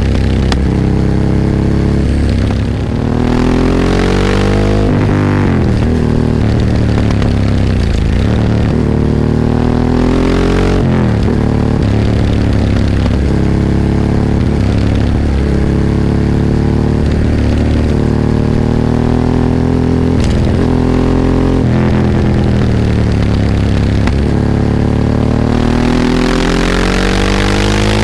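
Ducati 998's L-twin engine heard onboard while riding, revs climbing under acceleration and falling back several times.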